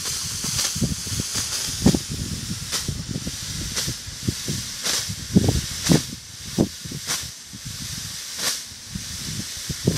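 Phantom 'Mammoth Smoke' white smoke tube hissing steadily as it burns, with irregular louder spurts every second or so. Under it are uneven low rumbling bumps.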